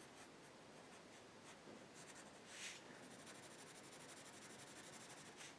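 Faint scratching of a pencil on paper: short, light sketching strokes, with a slightly louder stroke about two and a half seconds in and another near the end.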